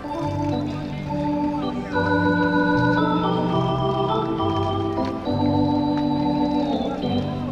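Organ music: held chords that change every second or so over a stepping bass line.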